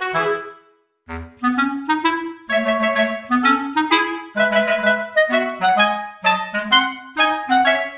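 Background music: a lively tune of short, separate pitched notes on a reedy wind instrument, breaking off briefly about a second in and then carrying on.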